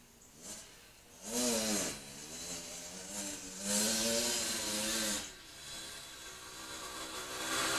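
Yamaha YZ80's small two-stroke single-cylinder engine revving up and easing off out of sight, in a quick rise about a second in, a longer high-revving pull around the middle, and another climb near the end.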